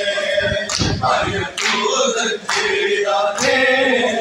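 Crowd of men chanting a Shia noha (mourning lament) in chorus, with a sharp beat of matam, hands striking chests in unison, about once a second.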